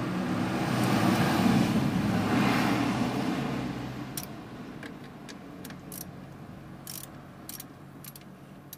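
A vehicle rumble that swells and fades over the first few seconds, then scattered sharp clicks of a socket ratchet being worked on a bolt under the bonnet.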